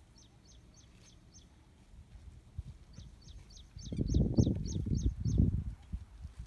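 A bird calling a quick series of short high chirps, about three a second, in two runs. A louder low rumbling noise rises in the second half for about a second and a half.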